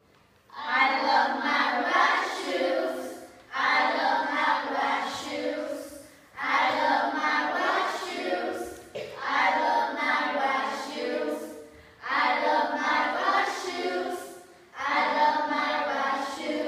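A small group of children singing a short song together without accompaniment, in five phrases with brief pauses between them.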